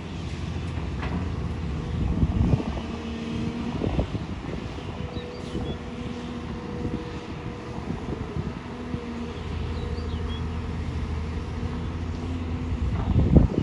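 Excavator's diesel engine running steadily while it works, with a few knocks partway through and a loud thump near the end.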